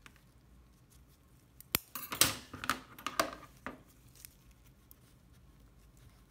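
Steel surgical instruments (needle holder and hemostats) clicking and clinking as they are handled during a knot tie: a quick, irregular series of sharp metal clicks starting a little under two seconds in and lasting about two seconds.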